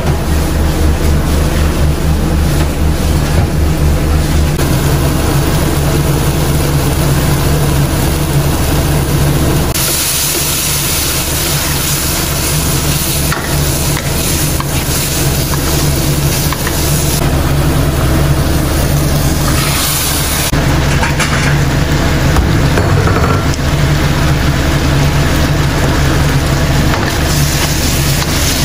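Meat and vegetables sizzling in a wok over a gas flame as a wooden spatula stirs and tosses them, over a steady low hum. The sizzling swells loudest from about ten seconds in to about seventeen seconds, and again briefly near twenty seconds.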